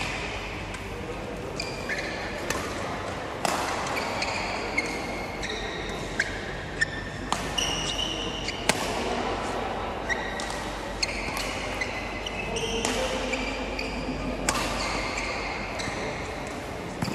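Badminton play: rackets striking a shuttlecock at irregular intervals, with short high squeaks of players' shoes on the court floor.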